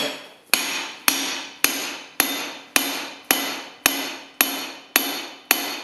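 Hand hammer striking the top of a steel eye drift set in a hot punched hole on a swage block, about two ringing metal blows a second at an even pace. The drift is stretching the punched hole out to the full size of the tool's eye.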